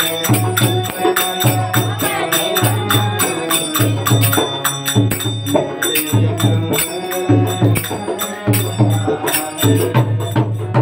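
Devotional bhajan music: manjira hand cymbals clinking in a fast, steady rhythm over a regular drum beat, with some held melodic tones.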